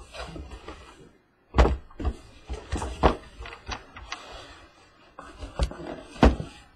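Cardboard shipping case being handled and opened by hand: flaps rustling and scraping, with several sharp knocks as the boxes are moved and set down on the table. The loudest knock comes about a second and a half in.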